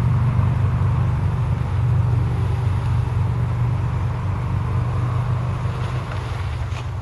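Vehicle engine idling steadily close by, a low, even running hum.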